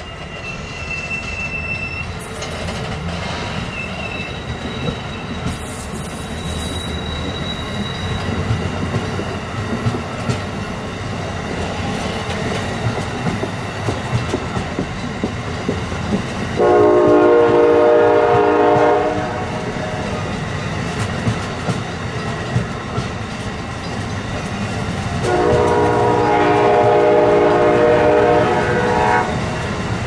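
A passenger train running on the rails with steady wheel clatter and some high wheel squeal early on. It gives two blasts of a multi-chime locomotive horn, a short one about two-thirds of the way through and a longer one of about four seconds near the end.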